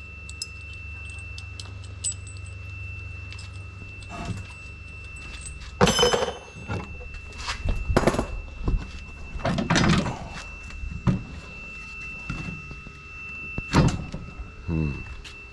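Irregular knocks and thuds of hands-on work on a sprayer's wooden deck and metal frame, with a sharp ringing metal clank about six seconds in. A low hum runs under the first four seconds.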